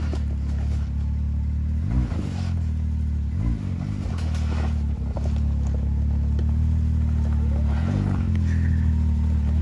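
Off-road vehicle engine idling steadily, with short throttle blips about two seconds in, again a second and a half later, and near the end, while the vehicle maneuvers over trail rock. A few scattered knocks and clatter are heard.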